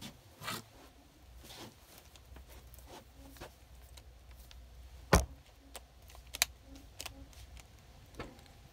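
Handling noises from a Makita cordless drill as hands grip and twist its keyless chuck to loosen the bit: scattered faint clicks and knocks, with one louder knock about five seconds in and a sharp click shortly after.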